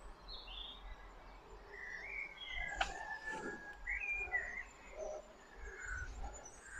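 Faint birdsong: scattered short chirps and whistled calls, with one sharp click about three seconds in, over a faint low rumble.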